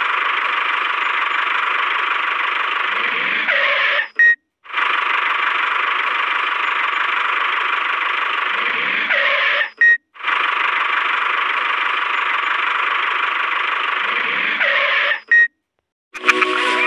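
Toy tractor engine sound, played as a repeating loop: a steady engine noise that runs about five seconds at a time. Each pass ends in a falling sweep, a short high beep and a brief cut to silence, three times over.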